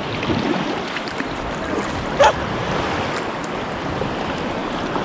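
Waves breaking and washing up the beach in a steady rush of surf, with a brief short pitched sound about two seconds in.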